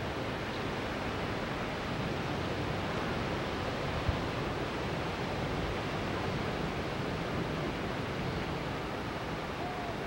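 Strong wind rushing through the leaves of tall trees as a steady rushing noise, with a single brief low thump about four seconds in.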